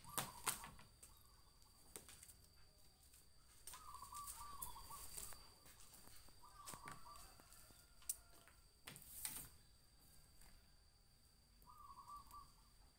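Faint outdoor quiet broken by a bird's short warbling calls, three times, with a few light taps and flaps of paper picture cards on a wooden tabletop and a steady faint high tone in the background.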